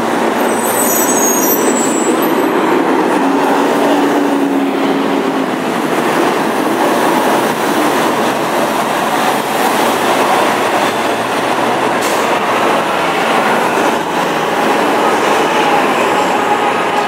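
Steady din of city street traffic, engines and tyres, with a brief high squeal about a second in.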